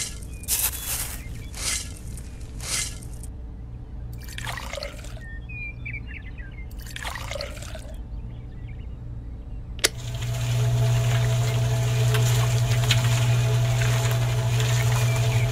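Dry cement mix tipped in short strokes into a miniature concrete mixer drum, then water poured in twice. About ten seconds in there is a click and the mixer's small motor starts, running steadily with a low hum as the drum turns.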